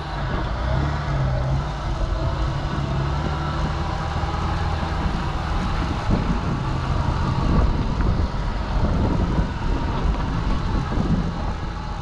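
Jeep Wrangler TJ engine running steadily as the vehicle drives slowly along a dirt bush track, with tyre and gravel noise over a low hum.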